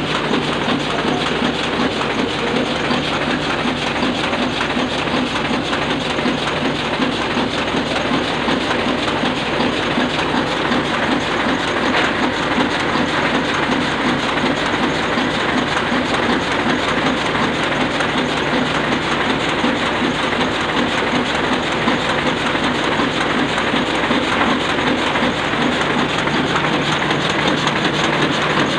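Sakurai Oliver 66 sheet-fed offset printing press running steadily: a continuous mechanical clatter with fast, even clicking over a steady low hum.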